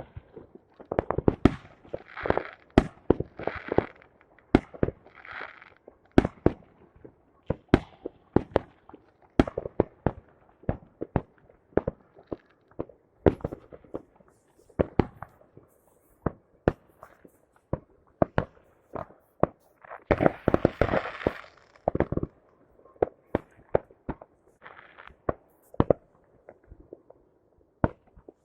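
Fireworks going off: many sharp bangs at irregular intervals, sometimes several a second, with a few longer crackling bursts near the start and about two-thirds of the way through.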